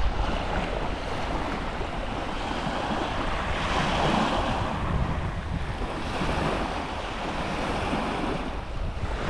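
Small waves washing and breaking onto a pebbly beach, with wind buffeting the microphone as a low rumble. The wash swells a little about four seconds in.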